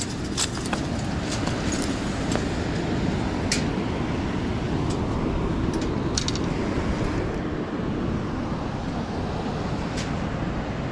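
Steady rushing roar of water pouring through a spillway, with a few sharp clicks on top.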